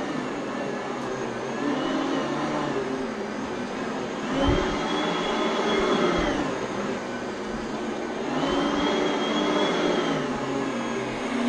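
Oreck upright vacuum cleaner running on carpet, its high whine rising and falling twice. A short low thump about four and a half seconds in.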